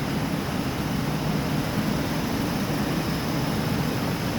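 Jaguar F-Type engine running steadily with a misfire, called strong ("malakas ang kanyang palya"), later traced to cylinders 5 and 6.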